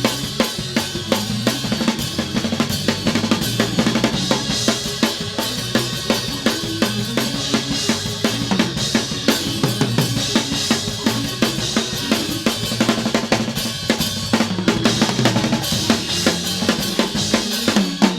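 Live church band playing a fast praise-break beat: a drum kit with rapid snare and bass drum hits over shifting low bass notes.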